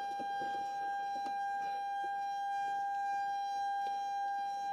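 Steady high-pitched electrical buzz from the Airbus A320's transformer rectifiers, which stay powered because the aircraft is kept on. It is one constant tone with overtones, with a couple of faint clicks.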